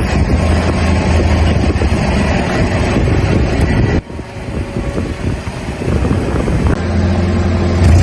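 Car engine running with a steady low hum under broad road and tyre noise. The sound changes abruptly about four seconds in and again near the seven-second mark.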